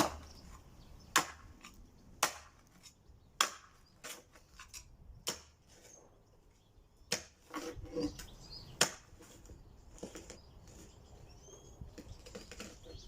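Hammer blows on timber: single sharp knocks about a second apart at first, then more widely spaced. Birds chirp faintly in the background.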